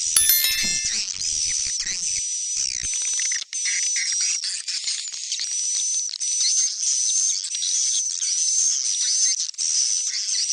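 Swiftlet lure-call recording of the kind played in swiftlet houses: dense, high-pitched twittering chirps from many birds, continuous with a few brief gaps. A short sharp tone sounds near the start.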